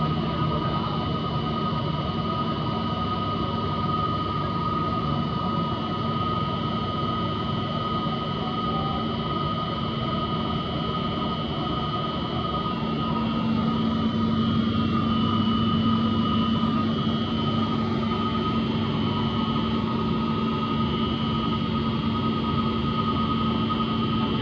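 Steady electrical hum and whine over a fan-like rush from an Emerson SP4403 inverter drive running under test with its motor. A low hum grows louder about halfway through.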